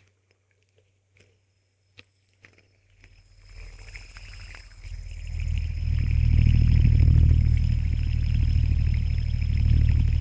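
A few light clicks of handling, then a hand spinner whirring as it spins, swelling from about three seconds in to a loud, steady whir with a deep rumble and a thin high ring from its bearing.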